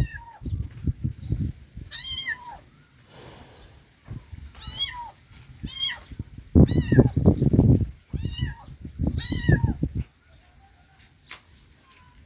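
Kittens mewing: short, high-pitched mews repeated about every second or two. A low rumbling noise comes and goes underneath, loudest midway through, and fades about two-thirds of the way through.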